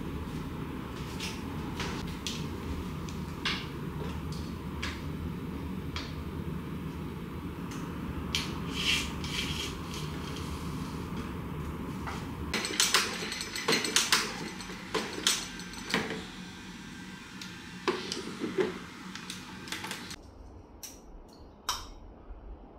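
Scattered clinks and light knocks of dishes and cutlery over a steady background hum. The clinks come more often in the second half, and the hum changes about halfway and drops away near the end, leaving a few sharp isolated taps.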